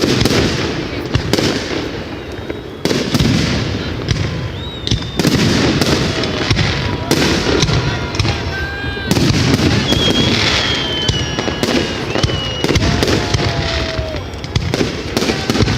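A fireworks display: a dense, continuous run of bangs and crackling. A few short high whistling tones come through, mostly in the second half.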